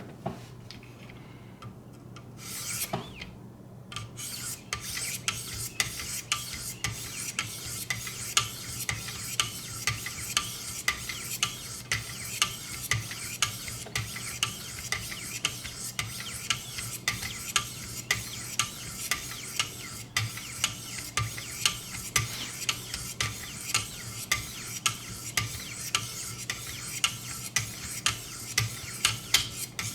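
Steel knife edge being stroked against an 800-grit sharpening stone on a guided sharpening system, a steady scraping rasp of repeated strokes, roughly one to two a second. After a short quiet start and a few knocks, the strokes begin about three seconds in.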